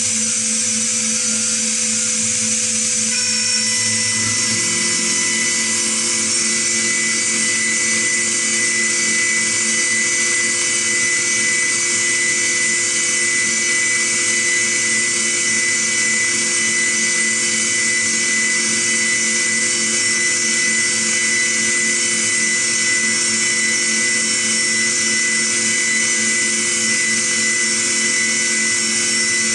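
Five-axis CNC machining centre milling a metal block with an endmill while its trunnion table tilts and rotates: a steady high spindle whine with cutting hiss. A further steady tone joins a few seconds in.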